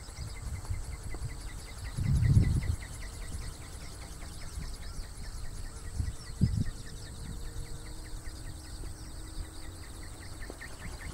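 Insects chirping in a fast, even pulse over a steady high trill, with low rumbling gusts on the microphone about two seconds in and again around six seconds.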